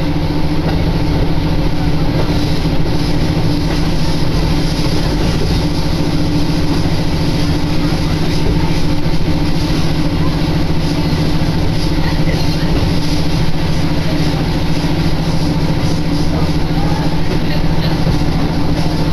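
Diesel railcar running steadily, heard from inside the car: an even engine hum over the rolling noise of the train, unchanging throughout.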